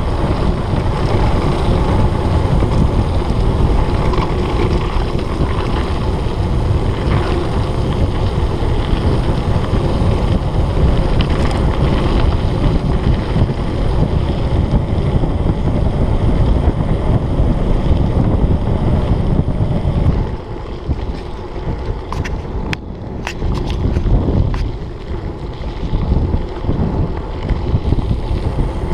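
Wind rushing over the microphone and the rattle of a mountain bike's tyres and frame on a rough dirt track during a fast descent. About twenty seconds in the noise drops and turns uneven, with a few sharp clicks.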